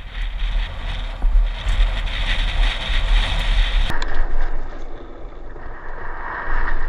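Mountain bike descending a gravel trail at speed: wind buffeting a helmet-mounted action camera and knobby tyres crunching and rattling over loose gravel. About four seconds in the sound turns abruptly duller.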